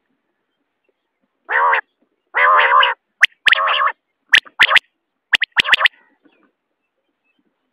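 Common quail calling: two harsh, buzzy notes about a second and a half in, then sharp clipped notes in quick groups of two and three mixed with more buzzy notes, ending about six seconds in.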